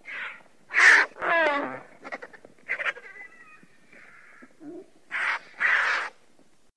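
Vultures calling: a run of harsh, rasping croaks and caws. One drawn-out call falls in pitch about a second and a half in, and the loudest calls come about a second in and near the end.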